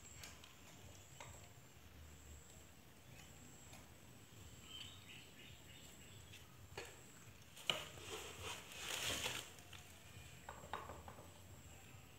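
Faint snips of hand pruning scissors cutting twigs on a sakura bonsai: a few light clicks, then a sharper snip about eight seconds in, followed by a second or so of rustling twigs and leaves.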